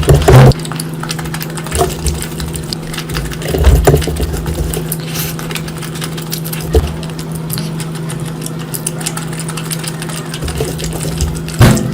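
Close-miked eating sounds, clicks and a few louder knocks, over a steady mechanical hum.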